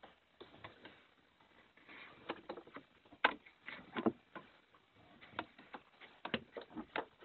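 Irregular light metallic clicks and knocks from hand tools and small hardware as a nut and washer are fastened onto a battery cable terminal. The loudest knocks come about three and four seconds in.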